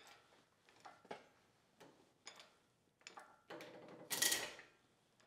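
Wooden miter joint with a cross-grain spline being loaded to failure in a test rig: a series of small clicks and creaks, then a louder sharp crack a little after four seconds in as the joint gives way.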